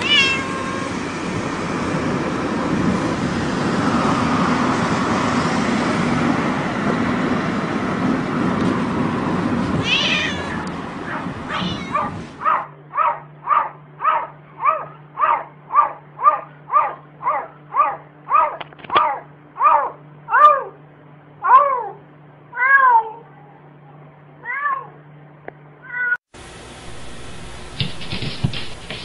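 A cat meowing in a moving car, heard over steady road noise. Then a cat meowing over and over, quick short meows at about two a second that slow into a few longer, wavering meows.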